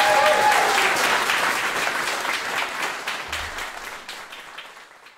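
Live audience applauding, with a whooping cheer at the very start; the clapping dies away gradually toward the end.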